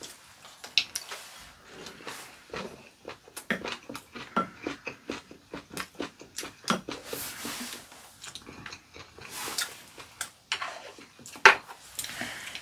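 People eating: chewing and biting, mixed with many short clicks of chopsticks and spoons against ceramic bowls and plates. The sharpest knock comes near the end.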